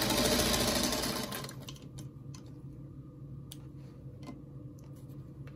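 Singer Featherweight sewing machine stitching a seam at speed for about a second and a half, then stopping, followed by a few light clicks.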